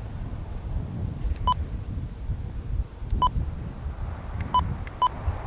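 Four short electronic beeps at one pitch, coming at uneven intervals, over a low wind rumble on the microphone.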